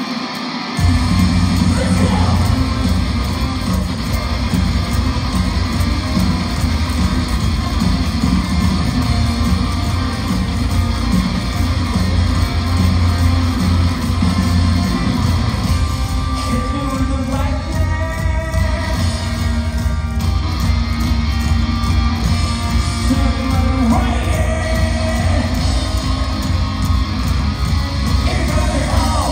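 Rock band playing live on an arena stage: pounding drum kit, electric guitars and bass, heard from the audience seats. The full band comes in about a second in, and a lead vocal is sung over it in the second half.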